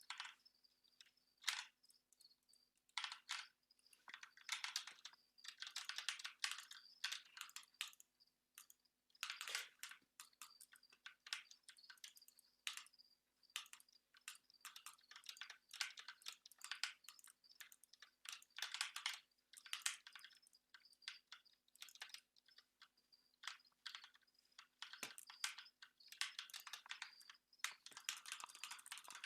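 Computer keyboard keys clicking in irregular flurries with short pauses between, over a faint steady high whine.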